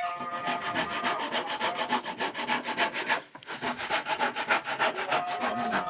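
Rapid, even rubbing or sanding on wood, about eight strokes a second, with a faint steady tone under it and a short break about three seconds in.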